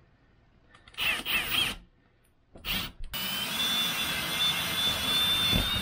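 Kobalt cordless drill turning a hole saw that cuts through an RV roof. It gives a few short trigger bursts, then runs steadily from about three seconds in.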